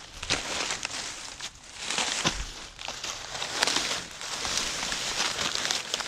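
Dry corn leaves and stalks crunching and rustling under footsteps, with irregular crackles.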